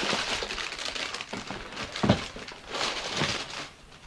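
Tissue paper crinkling and rustling as a sneaker is pulled out of its shoebox and unwrapped. It comes in uneven handfuls, loudest about two seconds in and again around three seconds, then dies away near the end.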